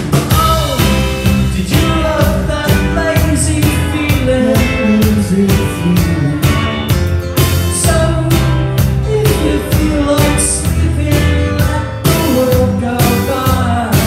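Live rock band playing a song: electric guitar, acoustic guitar and drum kit, with steady drum hits.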